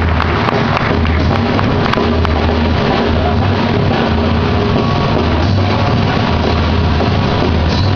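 Rock band playing live, loud and dense, with electric guitar, heavy bass and drums.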